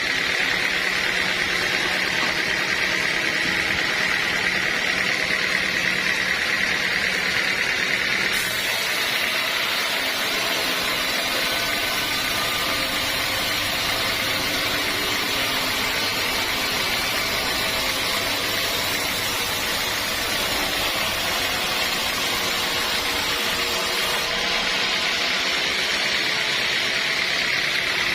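Sawmill saw machinery running steadily, with a brighter, hissier stretch from about eight seconds in until about twenty-four seconds in.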